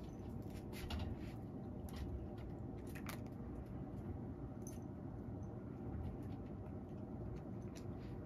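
A cat eating from a ceramic bowl: a few scattered small crunching clicks of chewing and of teeth touching the bowl, over a steady low hum from a fan heater.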